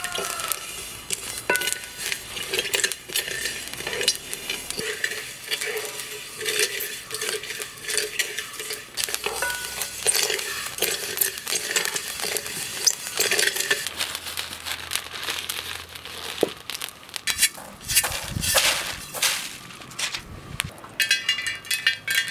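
A wooden spatula stirs dry-roasting red rice in a wide aluminium pan, and the grains rattle and scrape against the metal in irregular strokes. Near the end, cardamom pods drop and clatter into an empty metal pan.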